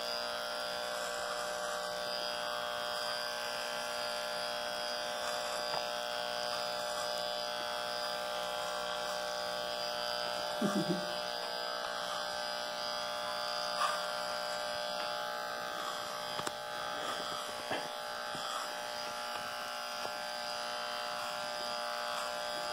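Corded electric hair clipper with a guard comb buzzing steadily as it cuts hair at the side of the head.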